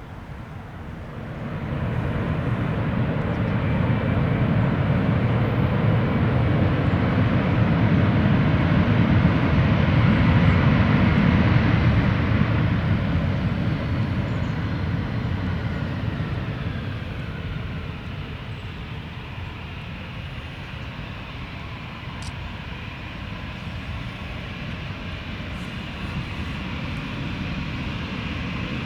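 Airbus A319 jet airliner's engines as it comes in to land. The noise swells over a few seconds and is loudest about ten seconds in. It then fades with a falling whine as the aircraft passes and moves away, leaving a steady engine noise.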